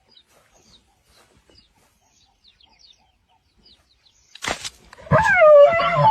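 Faint high bird chirps, then about four and a half seconds in a sudden loud crash and, right after, a loud squawking cry that falls in pitch.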